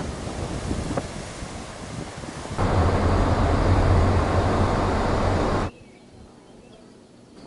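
Wind buffeting the microphone over breaking surf. About two and a half seconds in, it cuts abruptly to a car's road noise heard from inside the cabin: a steady low drone, the loudest part. That stops suddenly about two seconds before the end, leaving only faint background noise.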